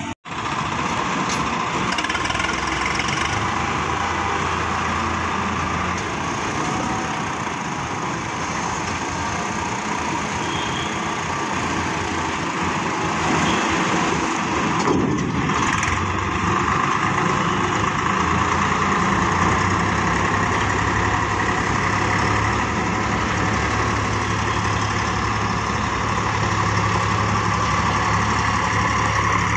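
Diesel tractor engines running steadily: one idling close by while a loaded tractor-trailer drives off. The sound cuts out for an instant at the very start.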